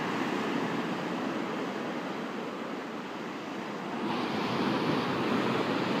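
Sea surf breaking and washing up a pebble beach as a continuous rushing wash. It eases a little in the middle and swells again about four seconds in as the next wave comes in.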